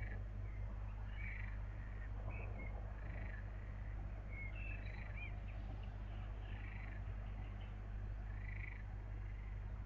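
Repeated short animal calls, about one a second, with a few brief high chirps, over a steady low electrical hum from the webcam's microphone.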